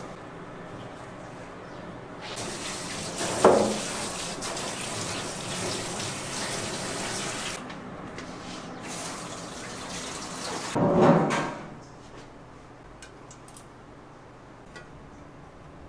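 Water running from a tap for about five seconds, starting about two seconds in, with a loud bump about a second after it starts and another louder bump near eleven seconds; a few faint drips and clicks follow.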